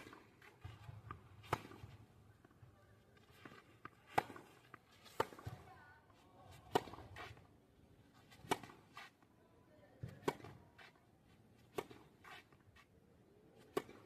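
Tennis balls struck by a racket in a practice rally: sharp pops every one and a half to two seconds, with softer knocks of the ball bouncing in between.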